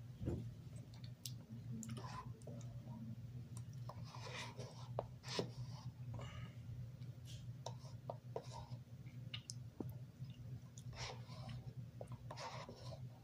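Faint eating sounds: a spoon scraping and clicking in a cup of ice cream, with small chewing and mouth noises. A steady low hum runs underneath.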